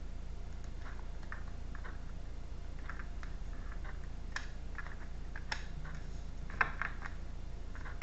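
Tarot cards being shuffled and handled, a scatter of light clicks and snaps of card edges, the sharpest a little past halfway through, over a steady low hum.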